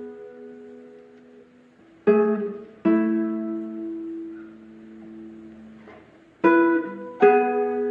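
Background music: acoustic guitar chords strummed in two pairs, each chord ringing out and fading slowly.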